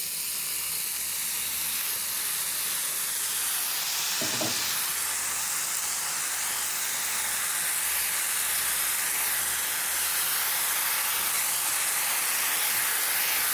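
Diced, boiled forage-cactus pads (palma) sizzling and steaming in a pan of hot lard and fried seasonings as they are stirred with a wooden spoon, a steady frying hiss.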